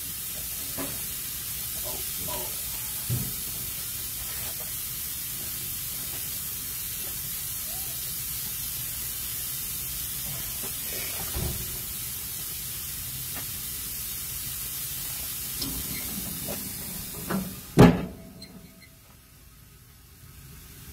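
Burger patties sizzling on a grill grate, a steady hiss, with a few light clicks of handling. Near the end there is one loud knock, after which the sizzle falls away.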